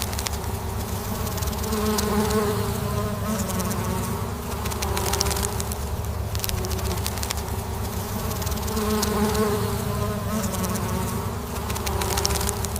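Many honeybees buzzing together in a steady hum whose pitch wavers gently, with scattered faint ticks.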